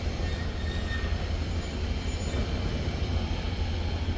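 Steel sliding gate rolling along its ground track, driven by a BFT Deimos AC gate operator: a steady low rumble.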